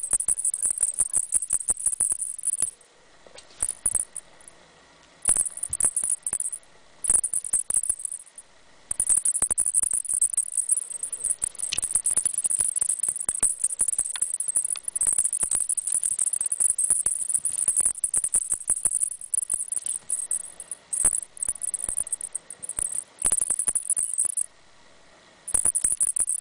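A small rattling toy shaken in bursts, a fast jingly clatter that stops and starts several times with short pauses.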